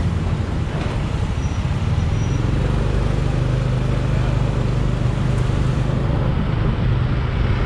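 Motorbike taxi engine running steadily while riding along a city street, with road and traffic noise around it.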